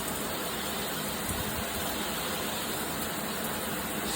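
Water spraying steadily from a running shower head, an even hiss of falling water.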